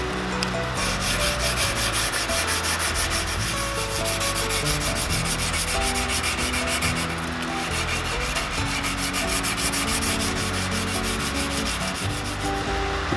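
Rapid, rhythmic sanding strokes on the blade, several a second, with a brief pause about seven seconds in. Background music plays underneath throughout.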